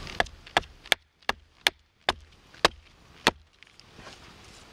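Hatchet chopping into a wooden spoon-ladle blank held on a stump chopping block, about eight sharp strikes roughly half a second apart that stop about three seconds in. Each blow splits a chip off the blank as it is roughed out.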